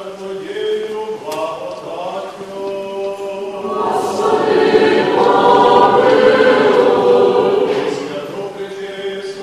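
Liturgical chant: a man's voice intoning on one steady note, joined from about four seconds in by a choir of many voices singing a response that swells louder and fades again near the end.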